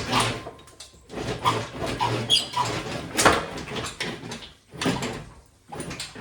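Engine hoist and chained 6.0 LS engine creaking, squeaking and knocking as the engine is worked loose and shifted forward. A run of short metal squeaks and clunks pauses about five seconds in, then starts again.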